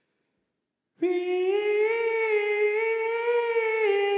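A man's voice singing a long held high note, unaccompanied, as the opening of an a cappella melody. It starts suddenly about a second in, wavers slightly in pitch and steps down a little near the end.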